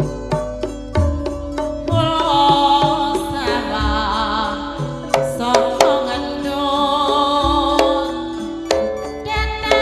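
Javanese gamelan (karawitan) playing tayub music: ringing metallophone notes over kendang drum strokes, quick and regular in the first two seconds. From about two seconds in a female waranggono singer's voice carries the melody.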